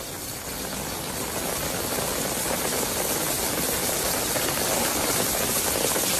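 Heavy rain falling as a steady, dense hiss that swells over the first second or so, then holds.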